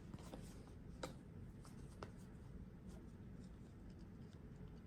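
Faint handling of trading cards: a few soft ticks and rustles as cards are moved one by one, over quiet room tone.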